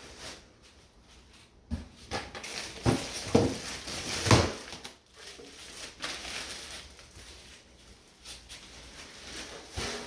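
A few dull knocks and thuds among rustling handling noises, the loudest knock about four and a half seconds in.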